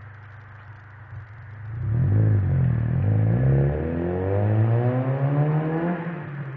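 Honda Civic's D16Y8 SOHC VTEC four-cylinder, breathing through a cold air intake and an aftermarket muffler, idling and then accelerating away. It gets much louder about two seconds in, and its exhaust note climbs steadily in pitch for about three seconds before dropping off near the end.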